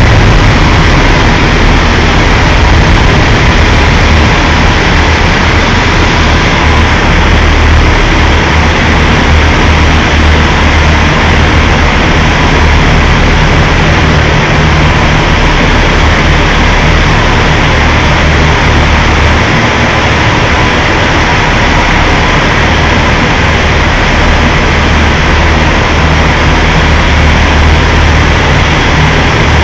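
Semi truck's diesel engine running steadily close by, a loud low rumble with no change in pace.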